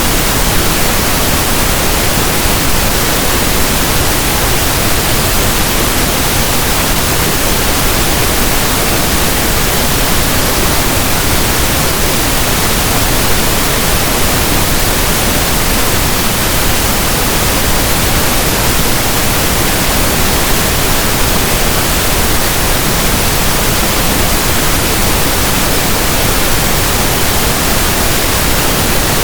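Steady synthesized noise: an even, unbroken hiss like soft static from a radio not tuned to a station.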